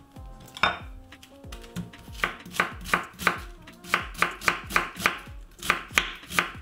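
Kitchen knife shredding a head of white cabbage on a wooden cutting board. After one cut about half a second in, the chops settle into a steady rhythm of about three a second from about two seconds in.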